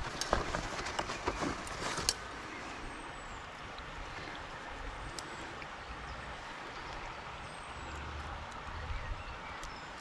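Shallow river water running steadily around a landing net held in the flow, with a run of sharp knocks and splashes in the first two seconds as a brown trout is handled in the net.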